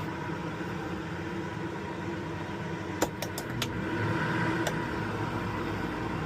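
RV rooftop air conditioner running with a steady hum. A quick run of clicks comes about three seconds in, and the sound grows a little louder soon after.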